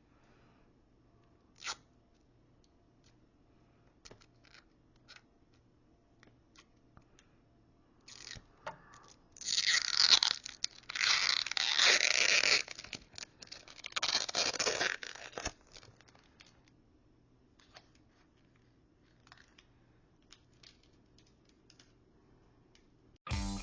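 Tearing and crinkling, in several loud bursts over about seven seconds near the middle, with scattered light clicks and taps before and after.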